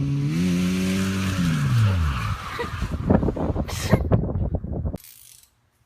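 Mazda Miata engine held at high revs while the car drifts with its tyres skidding. The note rises slightly just after the start, holds, then drops off about two seconds in. A few seconds of rough clattering noise follow before the sound cuts off suddenly about five seconds in.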